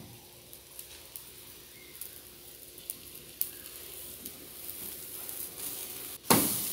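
Zucchini and egg omelette sizzling softly in a frying pan over low heat, with a few light clicks and scrapes as a plastic spatula is worked under its edge. Near the end comes a sudden loud burst as it is turned over, and the sizzling is louder after it.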